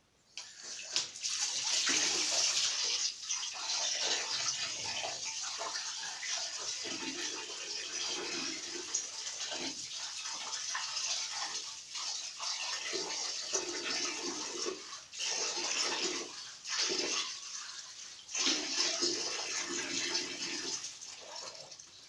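Running water splashing over a fan's guard grille as it is rinsed after scrubbing with detergent, the flow breaking off briefly a few times in the second half.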